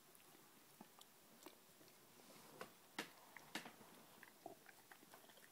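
A dog gnawing and mouthing a green rubber chew toy: irregular soft clicks and smacks of teeth and jaws, with two louder snaps about halfway through.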